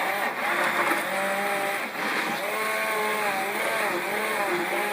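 Electric mixer motor running steadily, its pitch rising and falling again and again as it works.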